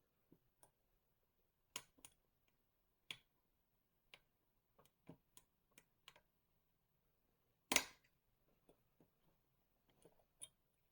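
Faint, irregular clicks and taps of a dimple-lock pick and tension wrench working the pins of an EVVA Akura 44 dimple lock, which is held in a false set, with one louder clack about three quarters of the way through.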